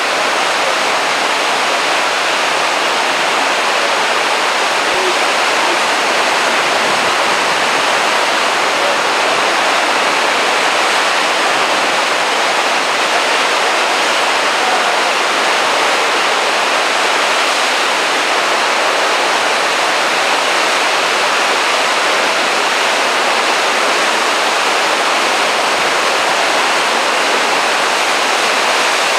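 Heavy surf churning over rocks below a sea cliff: a loud, steady rush of foaming white water.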